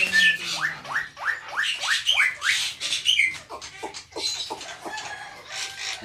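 Black-winged mynas (white starlings) calling: a rapid series of harsh notes, each falling steeply in pitch, about four a second, mixed with scratchy squawks, thinning out and growing fainter over the last couple of seconds.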